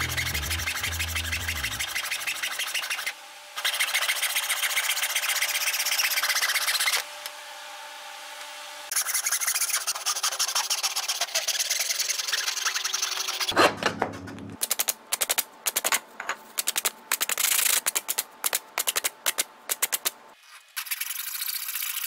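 Hacksaw cutting through a small piece of wood, a steady run of rasping back-and-forth strokes with two short pauses. A loud knock comes about halfway through, followed by choppier, broken strokes.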